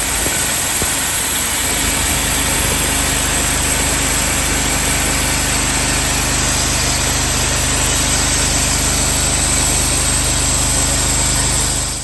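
Bandsaw sawmill's engine running steadily, then cutting off suddenly at the very end.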